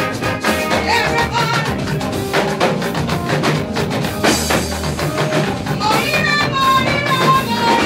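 Live gospel praise music: a band's drums and percussion keep a steady beat, with a voice singing a held, bending melody over it in the second half.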